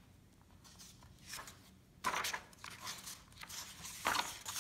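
A hardcover picture book being opened and its pages turned: paper and card rustling and swishing, starting about halfway in after near quiet.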